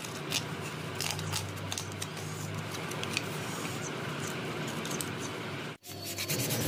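Knife whittling a small wooden horse figure by hand: scattered short snicks of the blade cutting wood over a steady background hum. Near the end the sound cuts out for an instant and changes.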